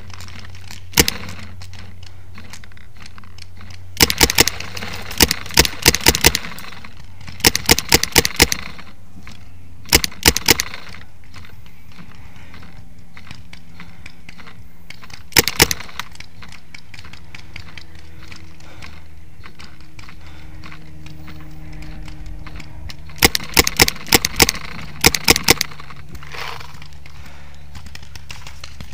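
Paintball markers firing in quick strings of several sharp pops each, with single shots in between, over a steady low hum.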